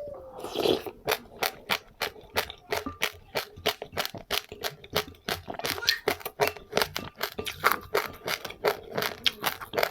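A person chewing crunchy seeds: a rapid, irregular run of small crisp crunches, several a second.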